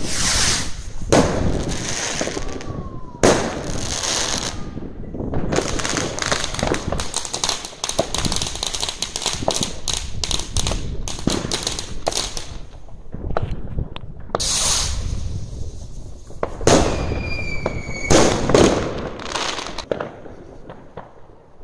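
New Year's fireworks going off: a series of loud bangs, with a dense run of rapid crackling through the middle and a short high whistle near the end.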